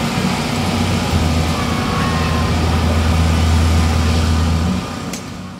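A steady, low mechanical hum like a motor or engine running, fading out near the end.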